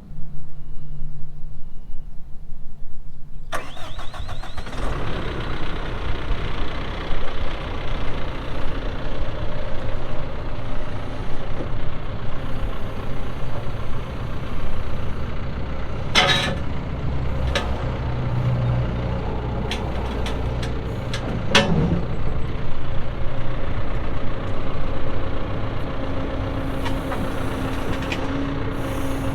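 John Deere 410L backhoe's diesel engine cranking for about three seconds, catching, then running steadily.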